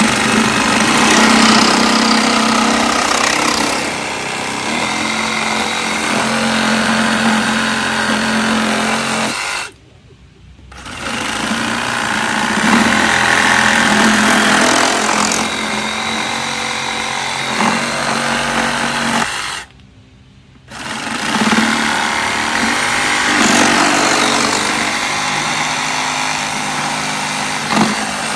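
Milwaukee 2719-20 M18 Fuel Hackzall cordless one-handed reciprocating saw running under load, its red blade cutting into a wooden log. The saw stops briefly twice, then starts cutting again each time.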